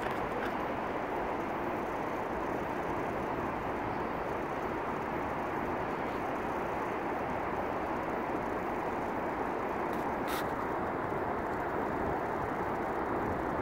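Steady, even noise of distant vehicles, with one faint tick about ten seconds in.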